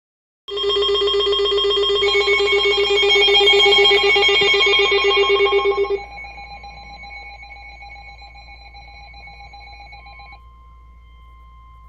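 A loud electronic alert alarm, several pitches ringing together with a fast trill like a bell. It starts half a second in, drops sharply about six seconds in, fades over the next few seconds, and leaves one thin steady tone.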